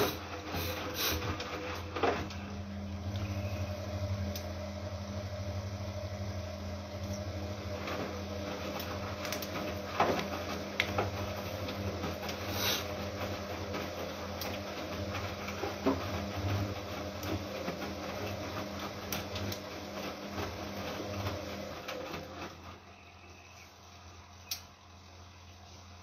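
Siemens Siwamat Plus 573 front-loading washing machine tumbling a wash load: a steady motor hum with occasional knocks from the drum. About three-quarters of the way through the drum stops and the sound drops much quieter, with a single click near the end.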